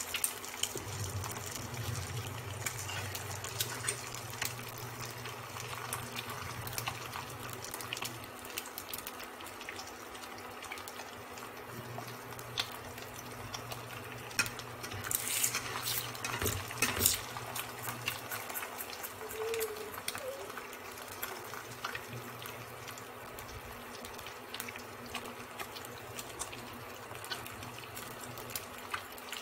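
An egg frying in oil in a nonstick pan, giving a steady sizzle over the induction cooktop's low hum. A spatula scrapes and clicks against the pan about halfway through.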